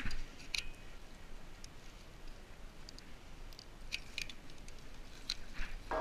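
Small irregular clicks of airsoft BBs being pressed one by one into an airsoft gun's magazine by hand.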